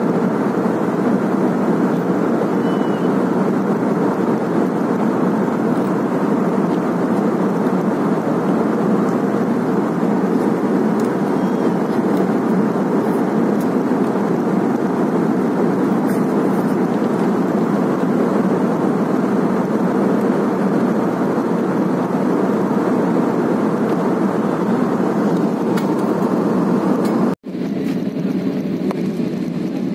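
Steady rushing noise inside an airliner cabin in flight: engine and airflow noise. It cuts out for an instant near the end, then carries on slightly quieter.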